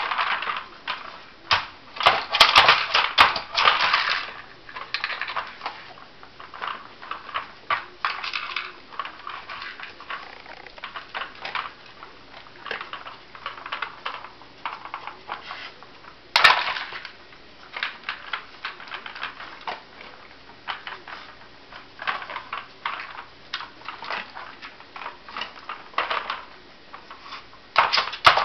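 Hard plastic layers of a Nina Ottosson Dog Tornado puzzle clacking and knocking as a dog's nose and paw turn them, with kibble rattling inside, in uneven flurries of clicks. There is a busy run of clatter in the first few seconds and one loud knock about halfway through.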